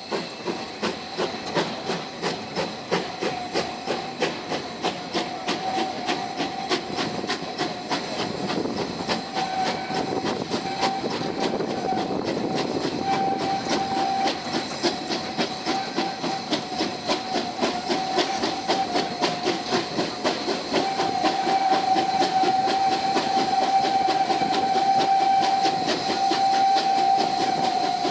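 Narrow-gauge Mh.1 steam locomotive working hard at the head of the train, heard from a carriage window: a steady run of exhaust chuffs about twice a second that quicken and grow louder toward the second half. A steady high-pitched tone runs underneath, louder in the second half.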